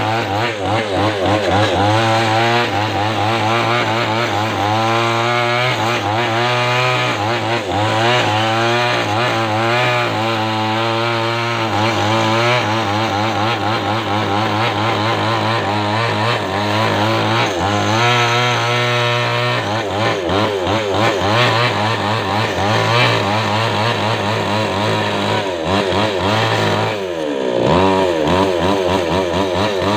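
Chainsaw running under load while cutting coconut wood, its engine pitch wavering as the bar works through the trunk. Near the end the engine note drops and then climbs again.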